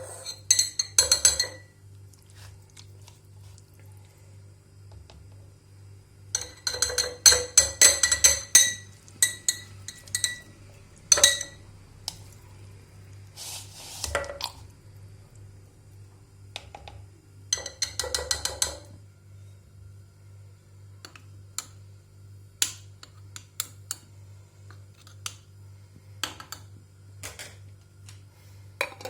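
A spoon clinking against a glass in several bursts of quick, ringing taps, as when stirring, with single clinks between them; a steady low hum runs underneath.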